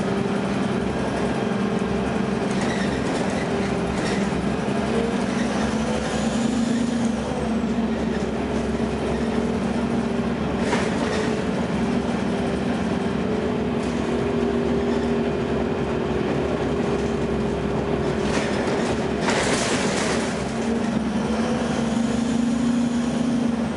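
2009 Gillig low-floor hybrid bus under way, heard from inside: the Cummins ISB diesel and Allison EP40 hybrid drive running with a steady drone and whine whose pitch shifts a little. Two short loud bursts of noise stand out, about eleven seconds in and near twenty seconds in.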